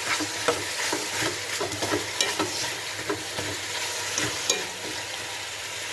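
Chicken pieces sizzling in hot oil in a large pot as they are stirred, with frequent short scrapes and clicks of the spoon against the pot over a steady frying hiss.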